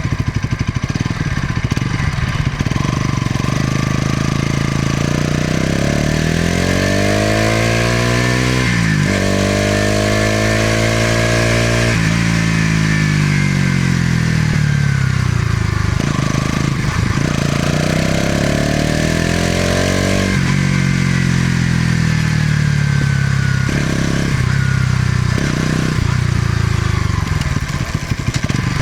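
Bajaj Pulsar NS200's single-cylinder exhaust note as the bike pulls up through the gears, pitch climbing and then dropping sharply at each upshift, then falling away as the throttle closes. Another climb and shift follows, then two short throttle blips near the end.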